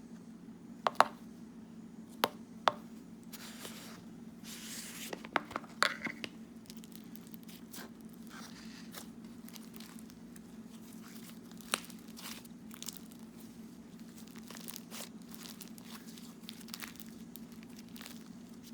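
Butter slime being squeezed and stretched by hand: soft sticky crackling with a few sharper clicks and pops, most of them in the first six seconds and one more about twelve seconds in, over a faint steady hum.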